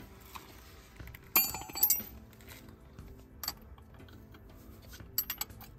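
Metal wrench clinking against the Brembo caliper's bleed screw: two sharp, ringing clinks about a second and a half in and a few lighter clinks near the end.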